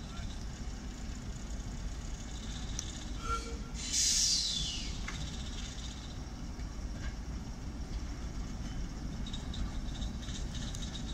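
BR Class 08 diesel shunter with a rake of brake vans moving slowly, a steady low rumble. A brief high squeal about four seconds in falls in pitch.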